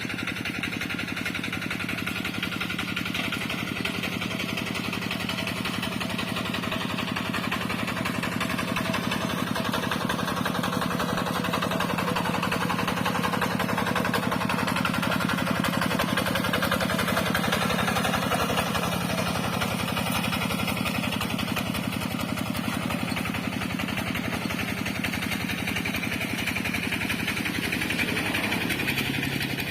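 Rice-paddy tractor's engine running steadily, growing slightly louder through the middle stretch.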